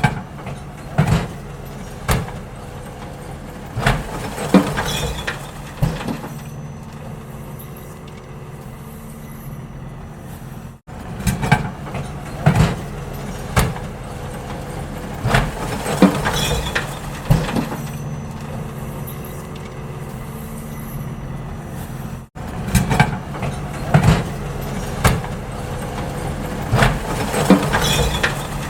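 Garbage truck engine running steadily while collecting trash, with frequent sharp bangs and clanks scattered over it. The sound cuts off abruptly twice and restarts, as if the recording is looped.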